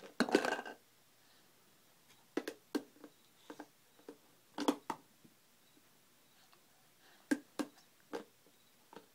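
Plastic shape-sorter pieces knocking and clicking against the hard plastic lid of a shape-sorter jar as a baby handles them and pushes them at the slots. A louder clatter comes near the start, then scattered single clicks.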